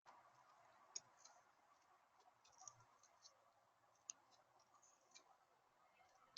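Near silence, with a few faint sharp ticks and short high chips from small birds at a feeder.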